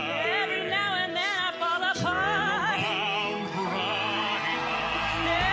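A man singing in an operatic style with wide vibrato, over a musical accompaniment. Near the end a deep bass comes in under the voice.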